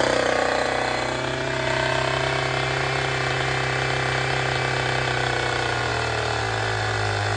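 Gas two-stroke chainsaw idling just after a pull start. Its pitch drops in the first second, then it holds a steady idle.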